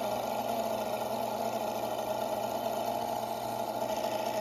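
Toyan L400 gasoline V8 model engine running steadily at an even speed, heard played back through a laptop's speaker.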